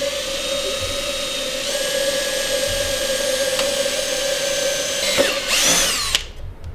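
Power drill running steadily as it bores a hole in a mounting plate, its whine stepping up in pitch about two seconds in. Near the end the pitch swoops down and back up, then the drill stops abruptly.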